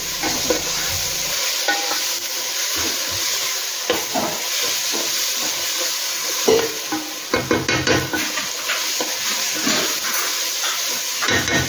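Onion-tomato masala sizzling in a nonstick pan while a wooden spatula stirs and scrapes it around, with a few sharper scrapes and knocks of the spatula against the pan.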